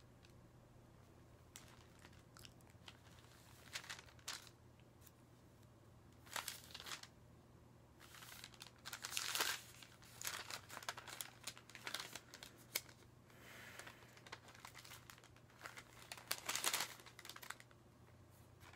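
Thin Bible pages rustling and crinkling in irregular bursts as they are leafed through, loudest about nine and sixteen seconds in.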